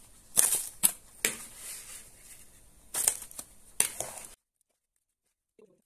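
Thin clear plastic food container and plastic gloves crinkling and crackling as sugared raspberries are spooned into it, with several sharp cracks among the rustling. The sound stops abruptly a little over four seconds in.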